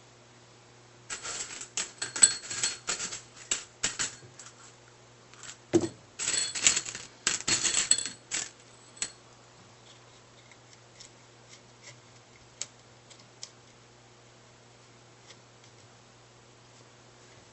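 Small metal hardware clicking and clinking as washers and nuts are handled and fitted onto the bolts of a RepRap build-plate carriage: two busy spells of rapid clicks, then a few sparse ticks.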